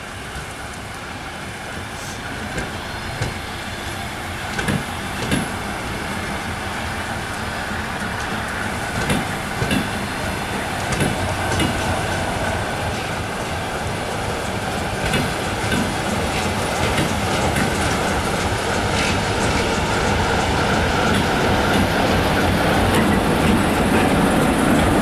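Passenger coaches of a train moved by a ChME3 diesel shunting locomotive rolling along the rails, wheels clicking over rail joints at irregular intervals over a steady rumble that grows louder toward the end.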